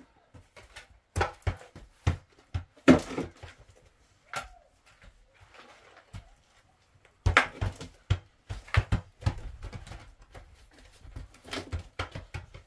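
Irregular knocks and clattering, in clusters with short quiet gaps.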